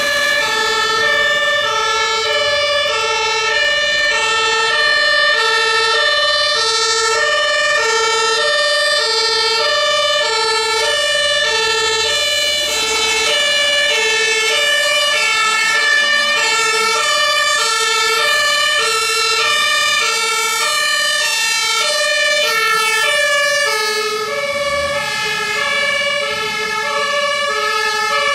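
German fire engine's two-tone Martinshorn siren, alternating steadily between a low and a high note, sounding for an emergency response.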